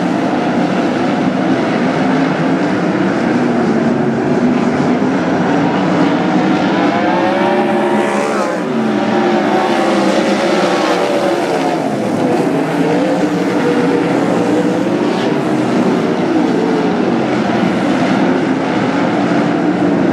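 A field of winged dirt-track sprint cars racing, their V8 engines running at full throttle in a constant layered drone that rises and falls in pitch as drivers get on and off the throttle through the turns. About eight seconds in, one engine's pitch swoops down and back up.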